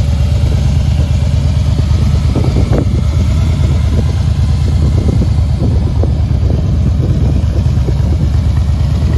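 Harley-Davidson Fat Boy's 1690 cc air-cooled V-twin idling steadily, with a few faint knocks in the middle.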